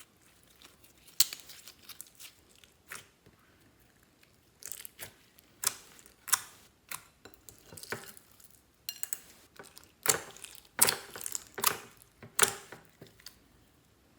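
Clear slime being mixed by hand, making irregular sticky clicks and pops in little clusters. The loudest run of pops comes in the last few seconds.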